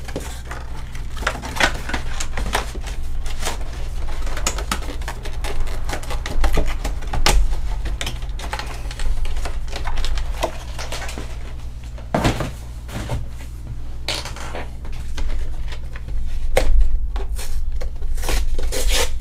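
Cardboard collector box and its clear plastic window insert being handled and pulled apart: irregular clicks, taps and crinkles, over a steady low hum.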